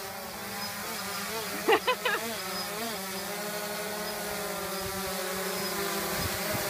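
Quadcopter drone's propellers buzzing steadily as it hovers, growing gradually louder as it drifts closer. A short voice calls out about two seconds in.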